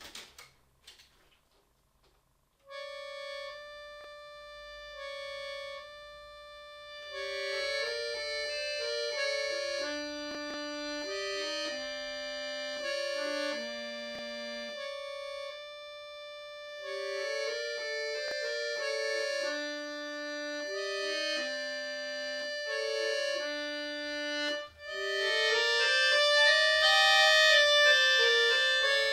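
Chromatic button accordion played solo: a few faint clicks, then about three seconds in a held note opens a lively melody of quick runs over sustained chords. After a brief break near the end it comes back at its loudest.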